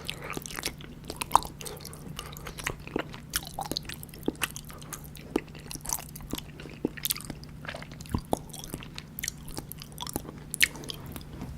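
Close-miked eating of soft, syrup-soaked gulab jamun: wet chewing with many irregular sticky clicks and smacks of mouth and syrup.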